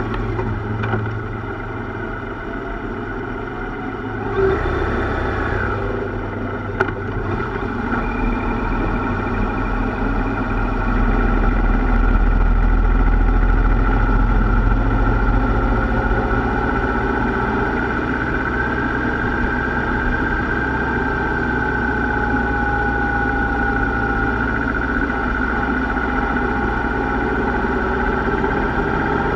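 Yamaha Royal Star V4 cruiser motorcycle running steadily at road speed, heard from on the bike. It gets louder for a few seconds partway through, with a brief rising note and a thump about four seconds in.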